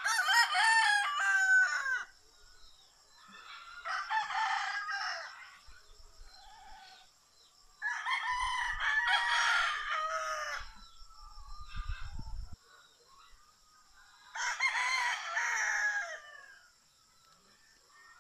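Roosters crowing: four long crows a few seconds apart, over a steady high whine.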